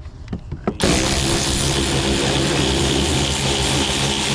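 Power drill running steadily to back out a long screw holding the fan shroud. It starts suddenly about a second in and runs for about three and a half seconds.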